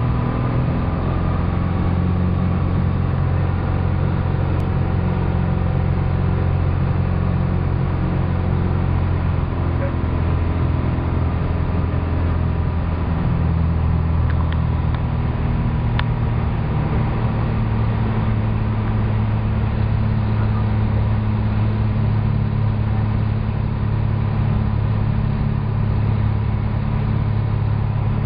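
Single-engine light aircraft's piston engine and propeller droning steadily inside the cabin during final approach to land, the tone shifting slightly about halfway through.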